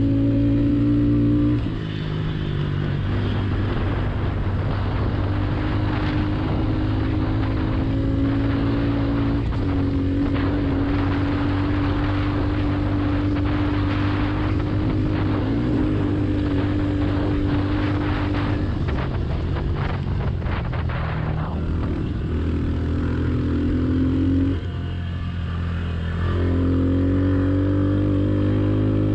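Honda CRF110 pit bike's single-cylinder four-stroke engine running hard at steady high revs. The revs dip briefly about two seconds in and again a few seconds before the end, then pick back up.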